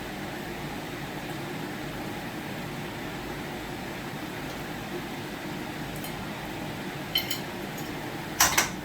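Steady ventilation hum in a small kitchen, with a few faint clicks about seven seconds in and two sharper clinks of kitchenware near the end as a plate is served.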